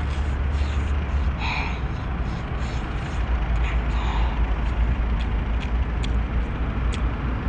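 Eating a whole brown crab in sauce: wet sucking and biting at the shell and roe, with small scattered clicks of shell and teeth. A steady low rumble runs underneath.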